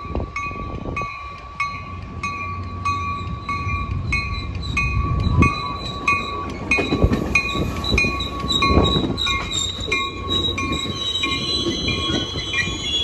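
Caltrain commuter train pulling into the station, its rumble building, with a bell ringing about twice a second throughout. High wheel squeal comes in near the end as it slows.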